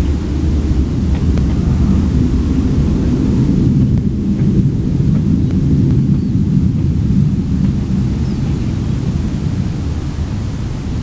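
A loud, steady, low rumbling drone with no clear source, swelling a little around the middle and easing slightly toward the end.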